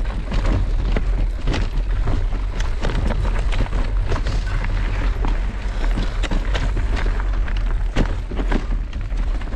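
Mountain bike riding over a loose rocky trail: a dense, irregular run of rattles and knocks from the bike and tyres on the stones, over a steady low rumble.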